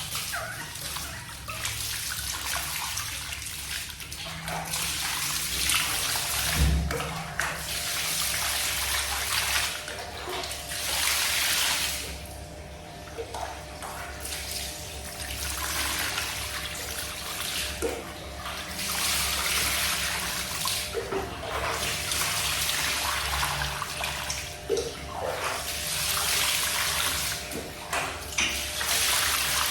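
Water poured and splashing in repeated swells during a baby monkey's bath, with one low thump about seven seconds in.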